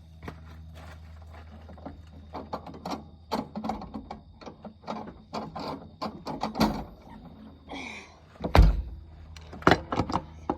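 Clicks and knocks of handling, then one heavy thump about eight and a half seconds in as the excavator's rear access panel is shut.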